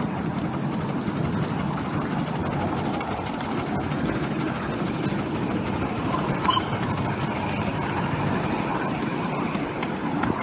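Light-railway steam train running, a steady rumbling noise of the locomotive and carriages on the track.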